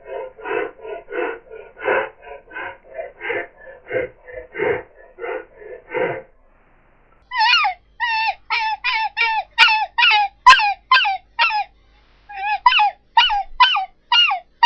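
Human voice imitating a wolf: a run of short rhythmic huffs, a bit over two a second, like panting. After a pause of about a second comes a string of high whimpering yelps, each dropping in pitch.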